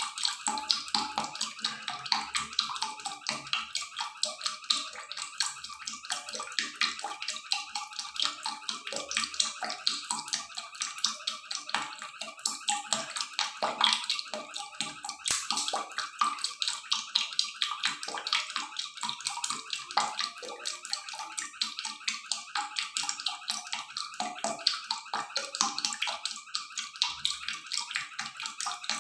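Duck wings boiling in a wok of water: a steady, dense bubbling and crackling.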